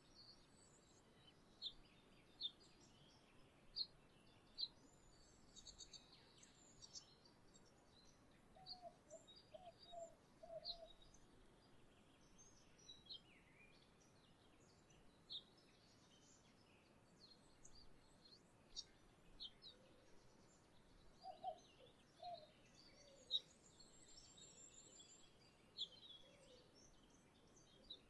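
Small songbirds chirping: many short, high, sharp calls scattered irregularly. A few lower notes come in two brief runs, over a quiet background hiss.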